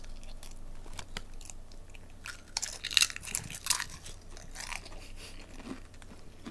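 Lay's potato chips being bitten and chewed, with crisp crackling crunches that come thickest and loudest about three seconds in.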